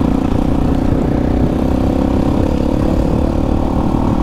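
Motorcycle engine, the single-cylinder of a Voge 300 Rally, running at a steady speed while the bike is ridden along a dirt track.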